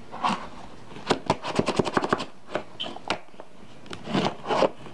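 A laptop's retail box and packaging being handled and opened by hand: a quick run of sharp clicks and crackles about a second in, with scattered rustling and scraping before and after.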